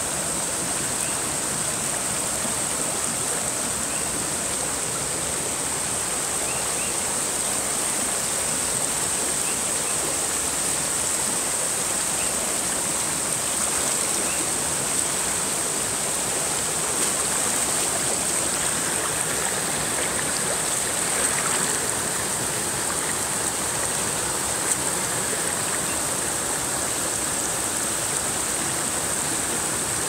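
Steady rush of a wide, fast stream pouring over boulders in small cascades and mini-waterfalls.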